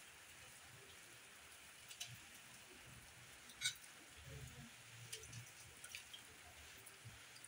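Near silence with faint scattered ticks as pak choi stems are snapped by hand into a metal frying pan, with one sharper click about three and a half seconds in.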